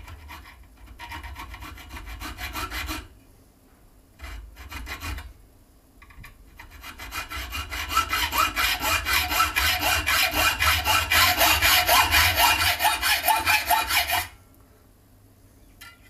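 Hand hacksaw cutting a metal bar clamped in a bench vise. A few short spells of strokes come first, then a long, loud run of rapid, even back-and-forth strokes that stops abruptly near the end.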